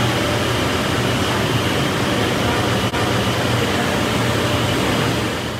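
Steady, fan-like machinery noise: an even hiss with a low hum underneath. It drops out for an instant about three seconds in, then carries on unchanged.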